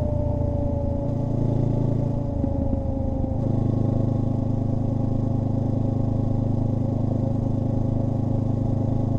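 Honda NX500's parallel-twin engine breathing through a Black Widow BC20V slip-on exhaust, with the bike ridden at steady cruising speed. The note droning under way is slightly louder than stock. The engine note wavers for a couple of seconds about a second in, then holds steady, and a whine falls gently in pitch over the first few seconds.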